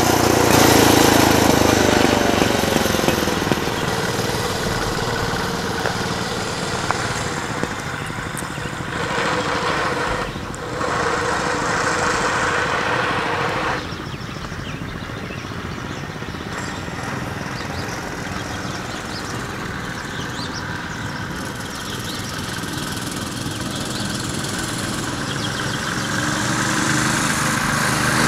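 Mini bike's small engine at full throttle on a top-speed run. Its pitch drops as it passes close by and rides away, and the engine sound cuts out briefly about ten seconds in. It then goes quieter in the distance and grows louder again near the end as the bike heads back.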